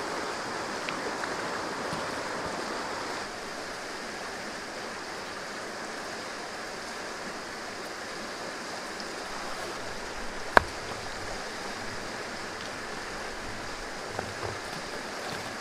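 River water running steadily, with one sharp knock about two-thirds of the way through.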